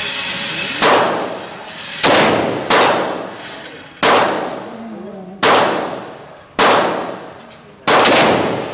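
Seven pistol shots at irregular intervals of about one to one and a half seconds, each a sharp crack followed by a ringing echo that dies away in the enclosed indoor range.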